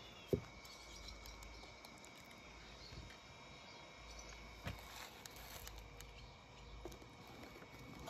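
Quiet handling of a die-cast toy car being dipped in a plastic tub of paint: a sharp tap about a third of a second in and a softer one near five seconds, over a faint steady background with a thin high tone.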